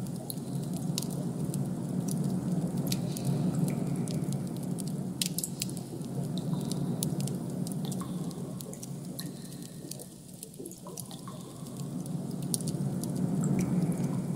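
Ambient sound-design bed: a low steady hum with scattered, irregular sharp clicks over it. It eases off briefly about two-thirds of the way through, then builds again.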